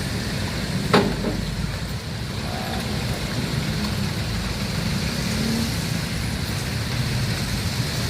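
Road traffic with vehicle engines running steadily, and one sharp knock about a second in.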